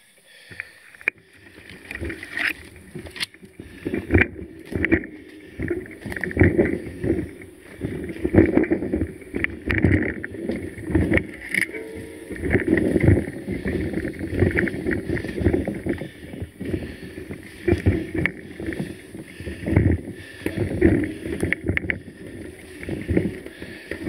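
Mountain bike rattling and clattering over a rough dirt-and-stone trail, with a dense run of irregular knocks as the tyres hit stones and roots. It picks up about a second in and keeps going unevenly.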